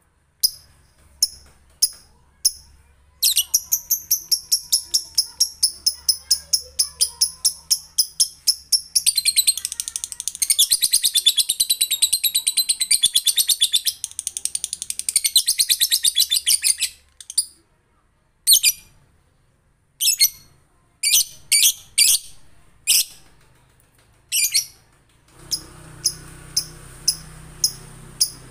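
Male lovebird ngekek: a few single high chirps build into a rapid run of chirps, about five a second. This swells into a dense unbroken chatter for several seconds, then breaks back into separate sharp chirps.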